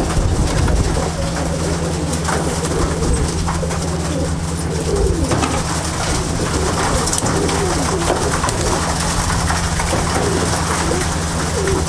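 A flock of Andhra pigeons in a loft, many birds cooing at once with overlapping calls, over a steady low hum.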